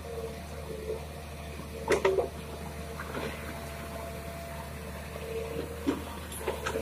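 Komatsu PC200-6 hydraulic excavator digging river gravel: the diesel engine runs steadily under a wavering hydraulic whine, with sharp knocks of the steel bucket against stones about two seconds in. Water pours and splashes off the loaded bucket as it lifts out of the river.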